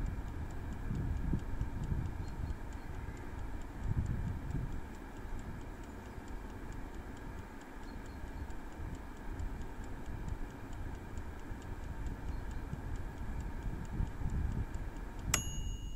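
Prego air fryer running, with the rapid, even ticking of its clockwork timer over a few steady tones from the unit. About fifteen seconds in, the timer's bell dings once and rings on, marking the end of the countdown when the chips are due to be taken out and shaken. A low rumble of wind on the microphone runs underneath.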